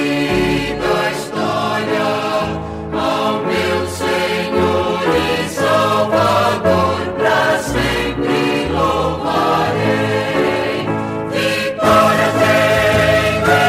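A gospel vocal group sings a hymn in harmony over instrumental backing, with a bass line stepping from note to note.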